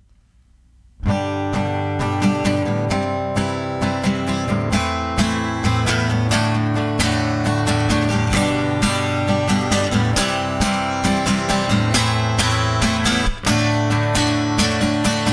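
Instrumental intro of a song, led by strummed acoustic guitar, starting suddenly about a second in and keeping a steady strumming rhythm.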